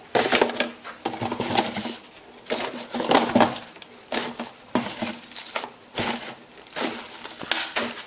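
Plastic bags and packaging crinkling and rustling in irregular bursts as boxed and bagged car parts are lifted out of a cardboard box, with a few knocks as parts are set down on a table.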